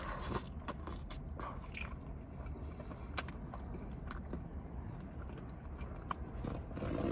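A person chewing and biting buffalo fries close to the microphone, with irregular soft wet clicks and smacks and one sharper click about three seconds in.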